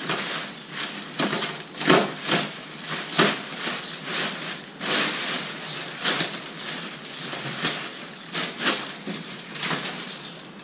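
Clear plastic wrap crinkling and rustling in irregular bursts as it is pulled away by hand.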